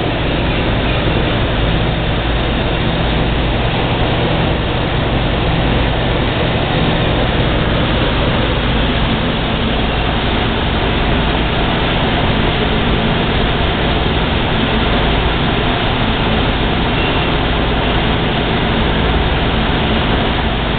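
K-Line O scale animated dump truck accessory running. Its electric mechanism makes a steady, unbroken noise with a low hum underneath while the truck drives and tips its bed.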